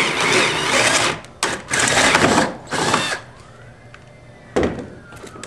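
Cordless drill with a 13/16-inch bit boring a hole through a plastic kayak deck: one long run, then three short bursts, stopping about three seconds in. A single knock follows near the end.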